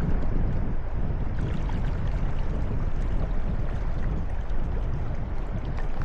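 Steady rush of flowing river water, with a heavy low rumble.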